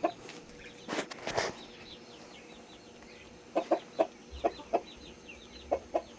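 Backyard chickens clucking: short clucks, mostly in pairs, at the start, in a run of several between about three and a half and five seconds in, and again near the end. Faint high chirps run between them, and there is a short rustling burst about a second in.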